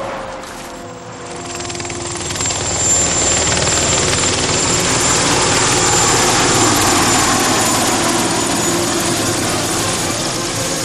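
Transport helicopter in flight, its rotor and turbine noise swelling about a second in and then holding steady, with a thin high whine on top.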